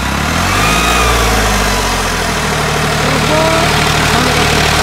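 New Holland 5500 tractor's diesel engine working under load while pulling a super seeder through the field. Its note shifts in the first second, then runs steady.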